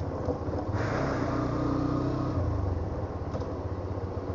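Motor vehicle engine idling with a low pulsing rumble. A swell of louder engine and road noise comes in about a second in and fades away by halfway through.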